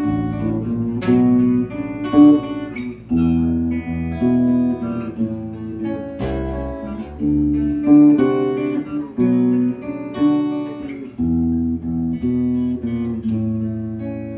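Instrumental break of a song played on acoustic guitar and electric bass guitar, with no singing: a run of plucked guitar notes over held bass notes.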